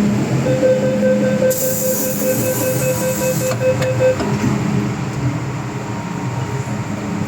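Inside an MTR M-train car: the train's steady rumble. A flat tone sounds as a run of quick beeps for about three and a half seconds, and a burst of hiss comes in the middle of it.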